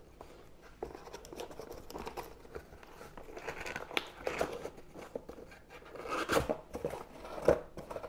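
Cardboard box being opened by hand: the tape tab peeling and tearing and the cardboard scraping and rustling, with a couple of louder scrapes near the end as the lid is lifted.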